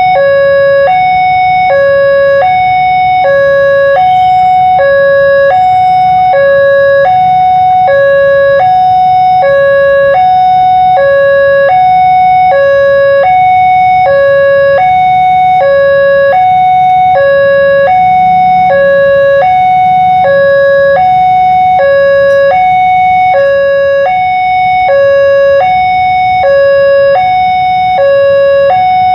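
Indonesian railway level-crossing alarm (weker) sounding, a hi-lo electronic warning that alternates steadily between a higher and a lower tone, each held about half a second. It signals that the barriers are down and a train is due. A low steady rumble lies underneath.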